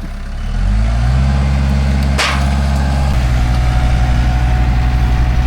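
Tractor's diesel engine revving up under load during demolition, with a single sharp bang about two seconds in. About three seconds in the engine note drops to a lower, pulsing beat.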